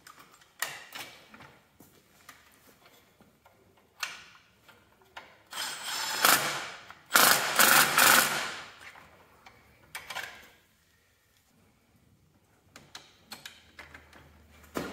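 Cordless power driver spinning a socket in several short bursts, running bolts in on a hydraulic valve bracket. The longest and loudest run comes about halfway through.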